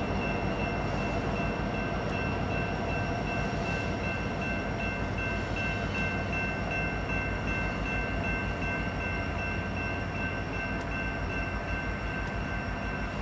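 Two CN EMD SD70M-2 diesel freight locomotives running as they slowly approach, a steady low engine rumble. A thin high tone runs over it.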